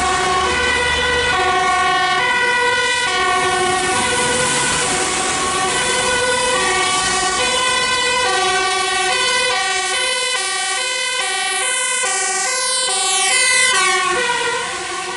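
A fire engine's two-tone siren, alternating a high and a low note, each held a little over half a second. It grows louder as the truck comes close and passes near the end, where the pitch of both notes drops.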